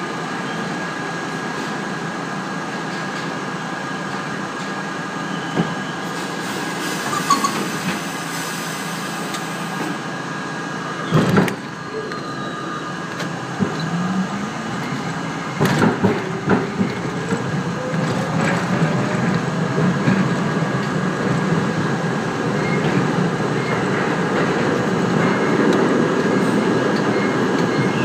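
R32 subway train standing with a steady equipment hum, then two sharp clunks, then its traction motors whining up in pitch as it pulls out and gathers speed, with the running noise growing louder.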